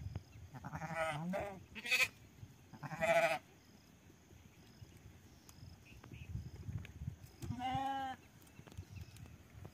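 Bleating from a mixed flock of sheep and goats: four short bleats, about one, two and three seconds in and another near the end.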